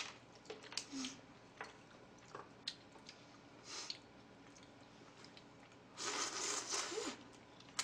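Close-up eating sounds of shabu-shabu: scattered light clicks of chopsticks and dishes with soft chewing, then a louder noisy stretch of about a second, about six seconds in, as a bite is taken from chopsticks.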